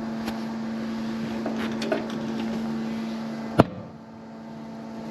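Steady low hum with small clicks and scrapes of hands handling wiring and parts, and one sharp knock about three and a half seconds in.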